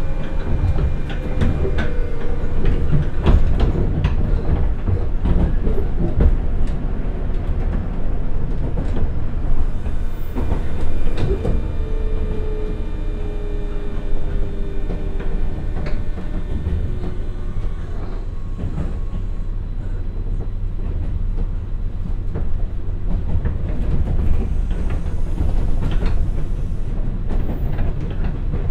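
JR West 201 series electric train heard from inside a motor car as it slows from about 65 to 40 km/h: steady rumble with the DC traction motor and gear whine slowly falling in pitch. Wheels click over rail joints now and then.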